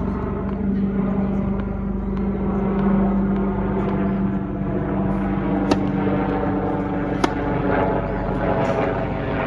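A steady engine-like drone with a low hum. Over it, two sharp pops about a second and a half apart, a bit past the middle, from a tennis racket striking a ball on a serve.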